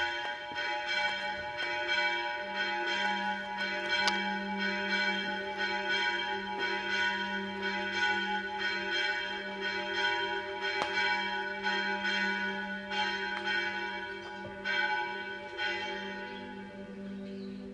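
Church bells ringing in a continuous peal, the repeated strikes overlapping in long ringing tones, fading a little near the end.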